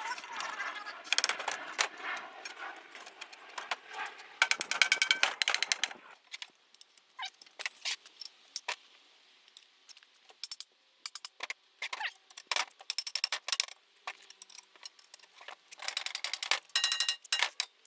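Aluminium screen-door frame pieces being handled and fitted: a run of irregular clicks, clinks and light metallic rattles, some ringing briefly.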